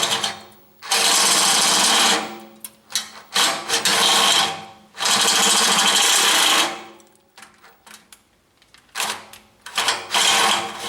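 Electric drill running in repeated bursts of a second or two, driving a step drill bit that cuts a light-mounting hole in the tailgate panel out to 18 mm. The bursts pause for about two seconds past the middle, then start again near the end.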